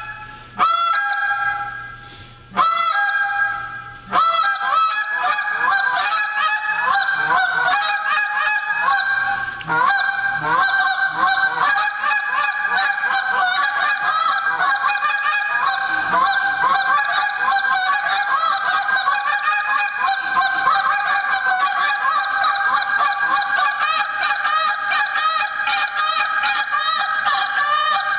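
Handheld goose call blown by a champion caller: a few separate long honks in the first four seconds, then an unbroken run of rapid honks and clucks, several a second.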